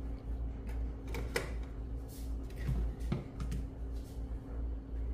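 A handful of short, light knocks and clunks as kitchenware is set down and moved on a glass-top electric cooktop: a frying pan, a plastic colander and an oil bottle. A steady low hum runs underneath.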